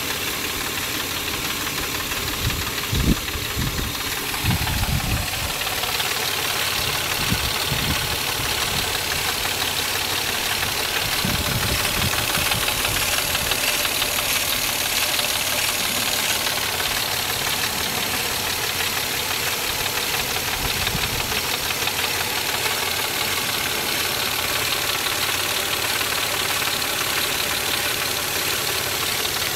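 Mazda MX-6 engine running just after start, making the weird noise it makes every time it is started, with a few low thumps scattered through the first twenty seconds.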